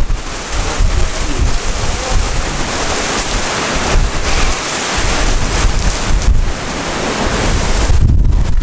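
Heavy rain driven by strong gusting wind in a severe thunderstorm, the gusts buffeting the microphone with a rumble that is strongest at the start and again near the end.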